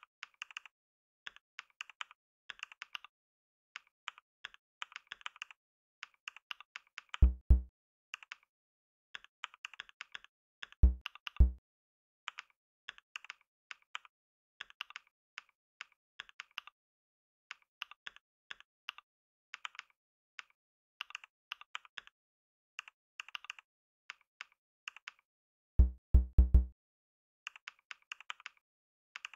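Computer keyboard keys clicking in fast, irregular runs of typing. Three times, about 7, 11 and 26 seconds in, a pair or trio of louder, deep thumps cuts in.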